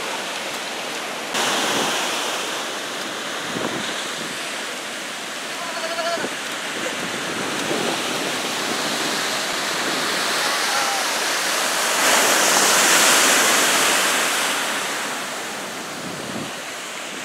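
Heavy storm surf breaking and churning below a pier, a continuous rushing wash of waves with wind gusting on the microphone. About three quarters of the way through, a larger wave swells louder, then eases.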